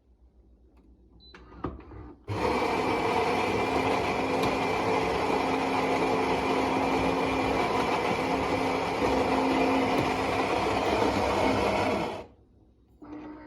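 Philips LatteGo fully automatic espresso machine running its motor, a loud steady mechanical whirr with a constant hum that starts suddenly about two seconds in and cuts off abruptly about ten seconds later. A few faint clicks come before it.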